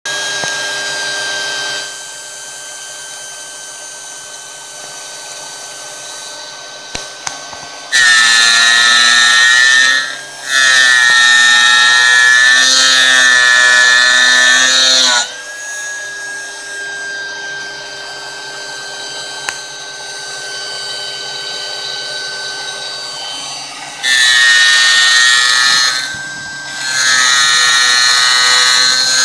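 CNC spindle turning a 0.8-module gear cutter through a brass blank. A steady high spindle whine is broken by loud, pitched stretches of cutting, the first about eight seconds in and more near the end, with the quieter spindle whine between them.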